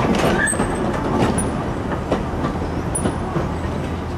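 Goods wagons rolling along the rails behind a diesel shunter, wheels clicking over the rail joints with a few brief high wheel squeals, slowly growing fainter.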